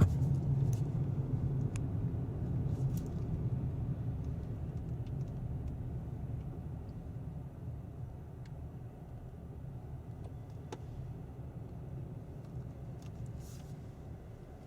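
Low vehicle rumble that fades slowly and steadily.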